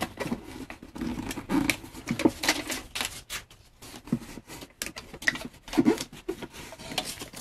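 Aluminium foil tape crinkling and scraping as gloved fingers press and smooth it down over holes in a fiberglass casting, in irregular crackles.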